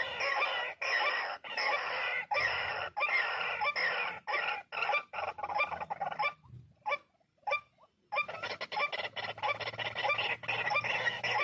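White-breasted waterhens calling, a dense run of rapid, repeated croaking notes. The calling thins to a few scattered notes about six seconds in, then picks up fully again about two seconds later.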